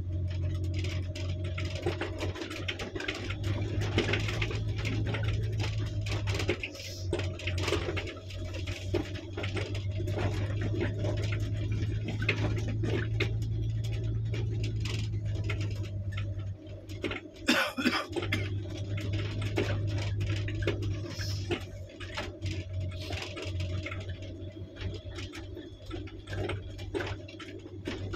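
Car driving on a gravel dirt track, heard from inside the cabin: a steady low engine drone under the constant crackle of tyres on loose gravel and small interior rattles, with a sharper knock about 17 seconds in.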